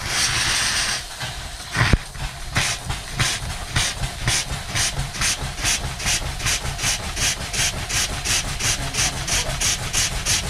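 Small horizontal stationary steam engine starting up with its cylinder drains open: a rush of steam hiss, a sharp clack about two seconds in, then regular exhaust chuffs that quicken to about three a second as the engine gathers speed.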